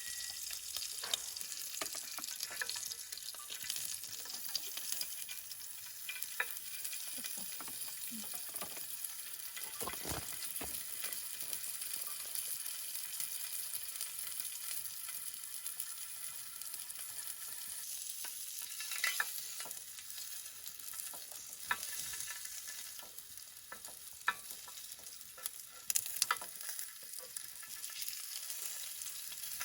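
Food sizzling steadily in a hot pan, with occasional light clicks and taps of a utensil against the pan.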